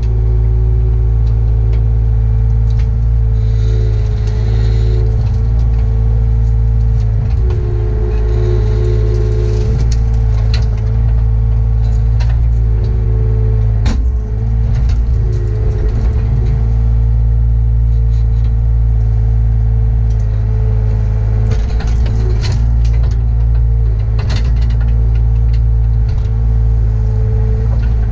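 Compact excavator's diesel engine running steadily, heard from inside the operator's cab, as the hydraulic boom and bucket are worked. A tone in the drone shifts and dips in pitch now and then, and short knocks come through at scattered moments.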